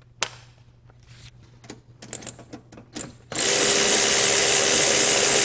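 Light clicks and knocks of tools and parts being handled, then about three seconds in a power tool starts and runs steadily at one pitch for about two seconds before stopping.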